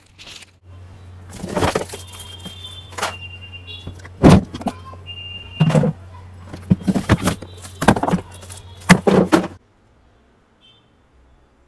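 Hard plastic body parts of a ride-on toy jeep knocking, scraping and clattering as they are handled and fitted, with several loud thumps and a few short squeaks. It all stops suddenly near the end.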